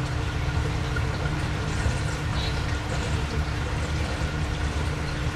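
Aquarium filter and aeration running: steady bubbling and trickling water over a low, even motor hum.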